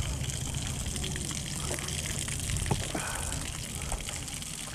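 Wind rushing and buffeting the microphone of a chest-mounted GoPro action camera, a steady low rumble, with a few faint knocks about halfway through.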